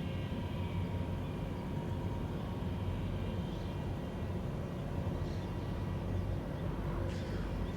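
ATR 72 twin turboprop's engines and propellers, heard as a steady low drone with a faint steady whine over it.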